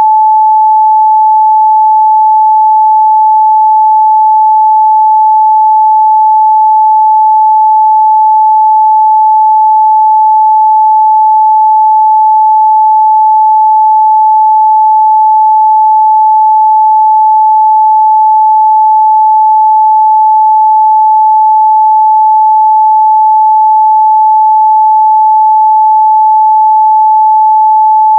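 A steady, loud, pure 867 Hz sine-wave test tone, one unbroken pitch with no other sound.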